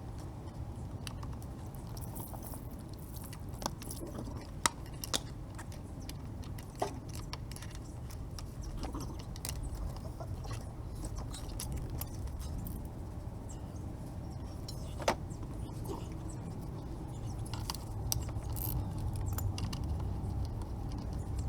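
Scattered sharp metallic clicks and clinks of tools and metal parts being handled, over a steady low hum.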